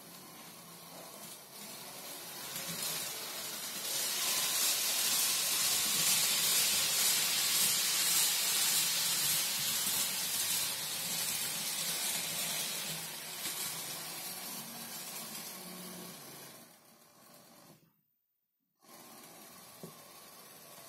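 Model train running around its track: a steady rushing hiss from the locomotive's motor and wheels on the rails that builds over the first few seconds, holds, then fades away. A moment of dead silence follows, then a single short click near the end.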